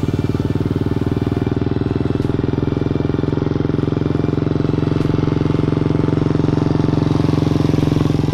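Royal Enfield single-cylinder motorcycle running through a Khalidaro Cannon straight-type stainless steel aftermarket exhaust, riding past at a steady engine speed. It makes a loud, deep, rapid thump that holds an even pitch.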